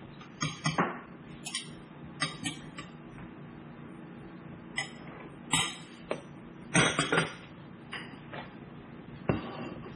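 Plates and cutlery clinking and knocking as dinner plates are handled and picked up from a kitchen counter: a string of short, sharp clinks, loudest about seven seconds in, over a steady low hum.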